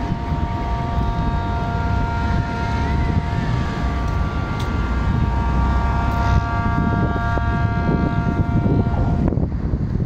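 Wind buffeting the microphone, with a low rumbling roar. Over it runs a steady, unchanging droning tone, which cuts off abruptly shortly before the end.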